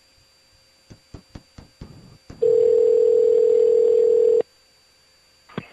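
Telephone call going through over the line: a string of clicks, then one steady two-second ringback tone, then a click near the end as the call is answered.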